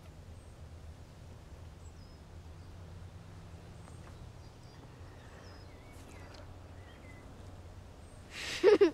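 Outdoor ambience with a steady low rumble and a few faint bird chirps. Near the end comes a short, loud burst of a person's voice with a wavering pitch.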